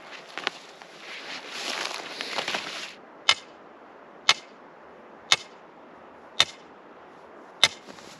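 A hoe scraping and rustling through soil and dry grass for about three seconds, then five sharp clicks about a second apart.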